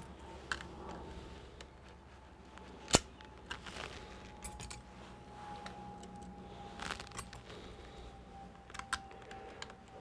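Small clicks and clinks of a small metal part and tools being handled on a laptop repair bench, with one sharp click about three seconds in. A faint thin whine slowly sinks in pitch underneath.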